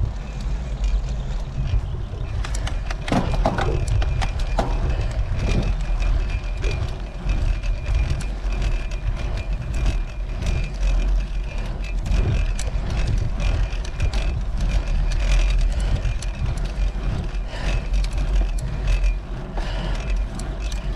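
Wind buffeting the microphone of a camera on a moving bicycle: a steady, loud rumble with gusts, over tyre and road noise.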